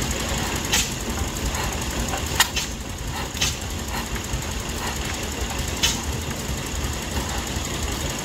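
Vintage flywheel stationary engine running slowly with a steady low chugging. A few sharp cracks come at uneven intervals.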